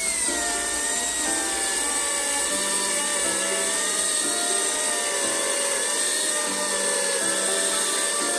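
Angle grinder with a cutting disc cutting through a steel shelving bracket: a steady high motor whine that drops slightly in pitch as the disc bites into the metal and wavers a little through the cut.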